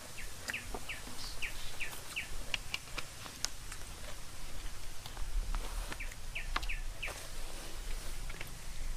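A bird calling in runs of short, falling chirps, about three a second: one run in the first two seconds and another about six seconds in. Several sharp clicks come in between.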